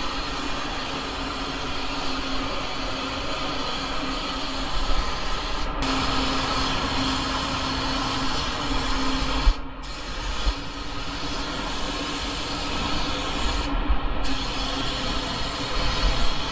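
Compressed-air spray gun spraying paint in steady hissing passes over a low steady hum; the hiss cuts out briefly three times.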